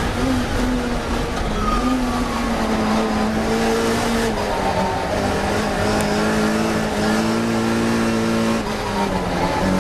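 Classic Mini race car's engine running hard at high revs, recorded onboard. The note holds steady, with a small drop in pitch about four seconds in and again near the end, over road and wind noise.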